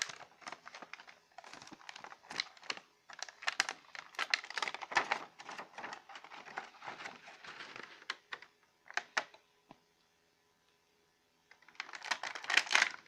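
A toy figure's clear plastic blister pack crinkling and crackling in quick, irregular clicks as it is handled and pulled open. It goes quiet for about two seconds near the end, then crackles again in another burst.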